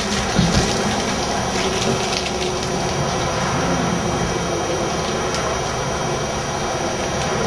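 A steady, even hiss with a low hum underneath, and no distinct events.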